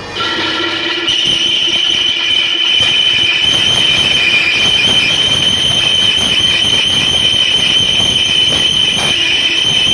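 A metal lathe's cutting tool squealing steadily against a steel truck wheel rim as the rim turns, a high-pitched screech over a grinding hiss of the cut. It gets louder about a second in and then holds steady.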